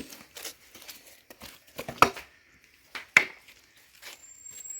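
Firewood being handled and stacked on a bonfire pile: scattered light crackles and rustles of branches, with two sharp wooden knocks about two and three seconds in.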